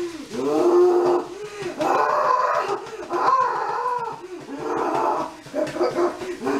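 A dog howling and whining in several short bouts, each call rising and falling in pitch.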